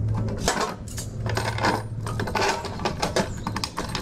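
Irregular metallic clinks and rattles as a fan puller and the metal blade of an AC condenser fan, just pulled off the motor shaft, are handled.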